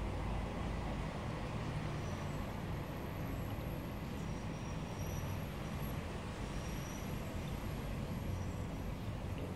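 Steady low rumble with a hiss over it, even throughout, and faint thin high tones coming and going.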